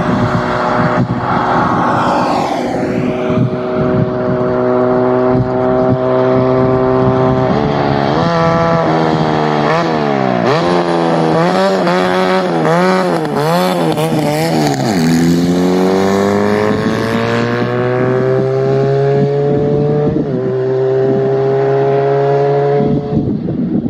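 A car's tyres and engine sweep past in the first few seconds. Then a turbocharged go-kart engine approaches, its pitch swinging up and down again and again as it nears and passes close by. The pitch drops sharply as it goes past and climbs steadily as it pulls away.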